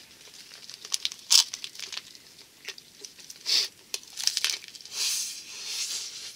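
Biting and chewing a nori-wrapped ehomaki sushi roll eaten in fast, big mouthfuls: crackly tearing of the seaweed wrapper and chewing noises in irregular bursts, the loudest about a second and a half in and again around three and a half seconds in.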